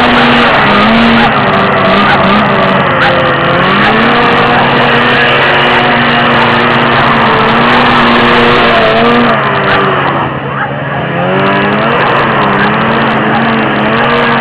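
1978 Arctic Cat Pantera 5000 snowmobile's two-stroke engine running hard, its pitch rising and falling as the throttle is worked on and off; it eases off briefly about ten seconds in, then revs up again.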